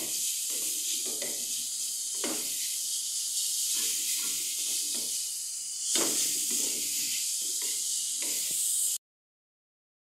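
Grated carrot sizzling in hot oil in an aluminium kadai, with a wooden spatula scraping and knocking against the pan as it is stirred. The sound cuts off suddenly about nine seconds in.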